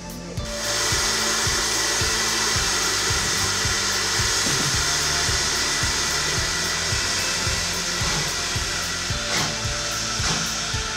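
Steam locomotive, an LSWR T9 4-4-0, with a loud steady hiss of escaping steam that starts about half a second in. Background music plays underneath.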